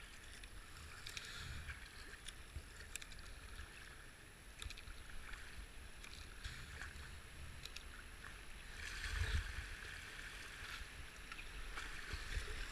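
Kayak paddle strokes dipping and splashing in calm river water, with the rush of a whitewater chute ahead growing louder near the end.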